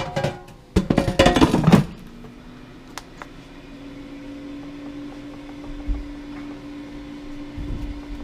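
Air fryer basket clattering into place, then the fryer's fan starting and running with a steady hum that rises slightly in pitch as it spins up.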